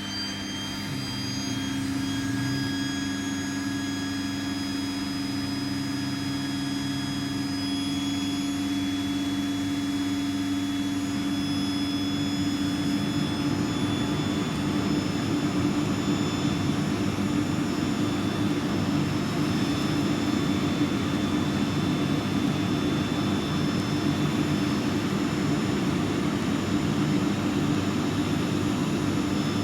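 Vacuum cleaner running steadily with a motor hum and whine, being worked over a dress. About halfway through the sound turns rougher and a little louder.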